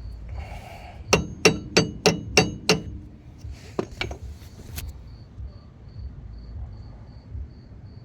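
Hammer striking a screwdriver wedged under a car's front wheel hub grease cap to knock it off: six quick, ringing metal-on-metal strikes at about three a second, followed by a few lighter taps.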